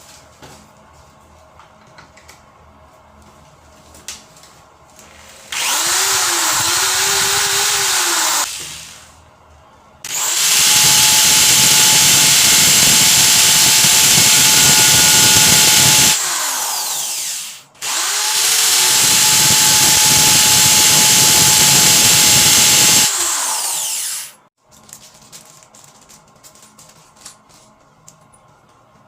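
Electric drill run in three long bursts: a short one of about three seconds, then two of six to seven seconds with a brief stop between them. Each of the last two drops to a lower level just before it stops.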